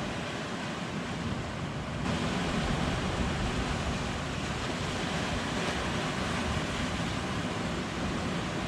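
Ocean surf washing steadily, mixed with wind on the microphone; it grows a little louder about two seconds in.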